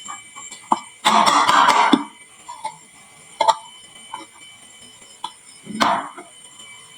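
Marbles clicking and clattering down a wooden marble run slope. There are scattered single clicks, a dense rattle about a second in that lasts about a second, and another short rattle near the end.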